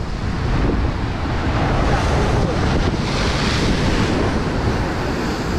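Sea surf surging and breaking against coastal rocks, with wind buffeting the microphone in a low rumble. A wave crash swells about three seconds in.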